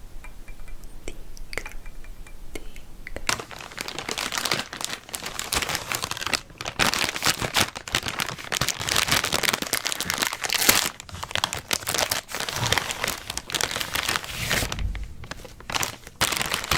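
A few faint clicks, then from about three seconds in a dense crinkling and crackling close to the microphone, with a short lull near the end.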